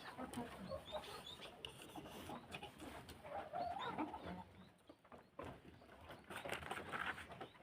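A flock of kienyeji chickens clucking and chirping in short, scattered calls while they feed, with light irregular clicks among them.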